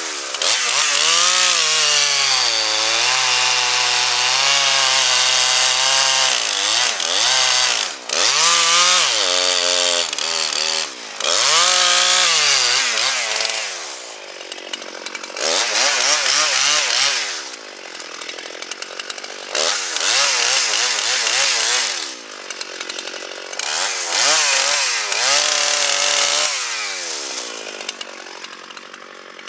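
Gas chainsaw cutting pine, its engine revving up and dropping back in a series of loud bursts, then easing off near the end.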